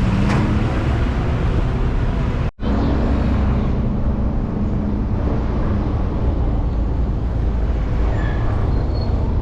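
Car driving along: steady engine and road rumble, with a faint steady engine hum. The sound drops out for a split second about two and a half seconds in.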